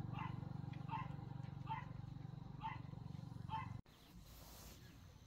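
Short animal calls repeated about every 0.8 seconds, five in all, over a steady low hum. Both stop suddenly about four seconds in, leaving a much quieter outdoor background.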